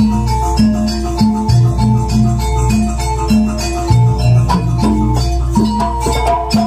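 Jaranan dance music from a gamelan-style ensemble. Mallet percussion plays a repeating melody over steady low pitched notes, with regular drum and rattle strokes.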